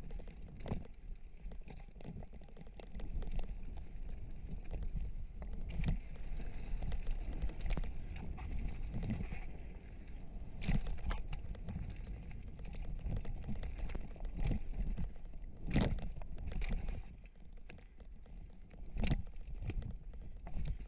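Mountain bike riding fast down a rocky dirt trail, heard from a camera on the rider's full-face helmet: a steady low rumble of tyres and wind broken by frequent knocks and clatters of the bike over rocks, with two sharper knocks in the last third. Through it runs rattle from the Fox Proframe RS helmet carrying the camera.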